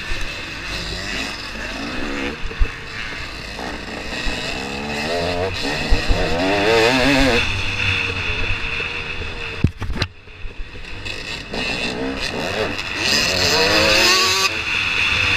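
KTM 250 XC-W two-stroke dirt bike engine, heard from on board, revving up and down as it climbs and falls through the revs, with the throttle briefly shut about ten seconds in. A few sharp knocks come through from the rough trail.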